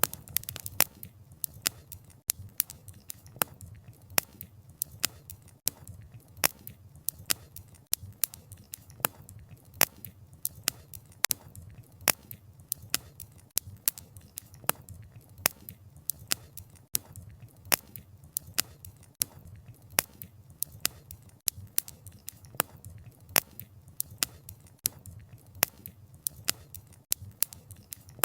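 Wood fire crackling: logs popping in sharp, irregular snaps, several a second, over a low steady rumble of the flames.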